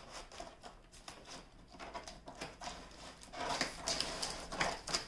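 Cardboard packaging being handled and cut with scissors: irregular scraping and rustling of cardboard, louder in the second half.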